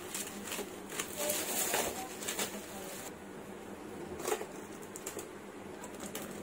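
Bubble wrap and thin plastic film crinkling and crackling as they are pulled off a metal pencil tin, in irregular bursts, the busiest about a second to two and a half seconds in.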